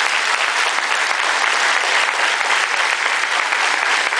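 Steady applause from a hall audience, with choir members on stage clapping along.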